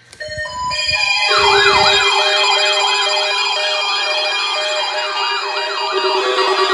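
A siren warbling up and down in pitch about three times a second over steady, sustained synthesizer-like tones, with a few low thuds in the first two seconds.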